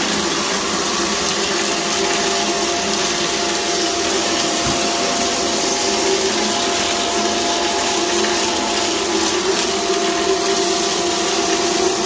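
Canister vacuum cleaner running steadily, its hose and bare metal wand sucking up loose dirt from a tile floor, with a thin steady whistle over the motor.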